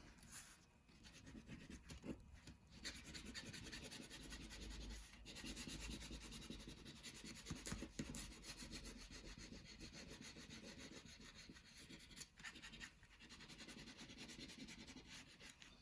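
Faint scratchy rubbing of a colouring tool on paper, quick back-and-forth strokes as a section of a drawing is filled in with blue.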